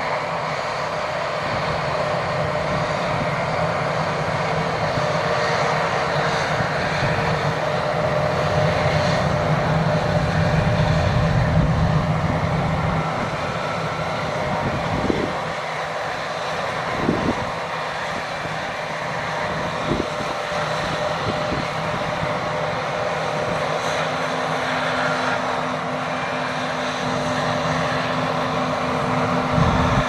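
John Deere T670i combine harvester running under load while cutting grain: a steady engine and threshing drone that grows louder as the machine passes close. A few sudden knocks come in the second half.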